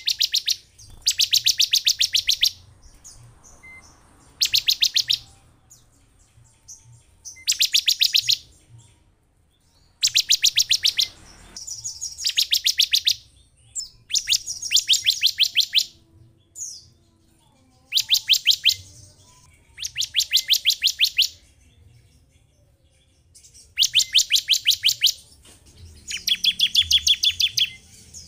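Bar-winged prinia (ciblek) calling in rapid trills of sharp, evenly spaced notes. Each trill lasts about a second, and they repeat about ten times with short gaps between.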